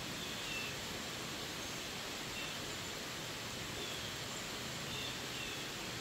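Heavy rain falling steadily on forest leaves and a paved road, an even hiss, with a few faint short high chirps now and then.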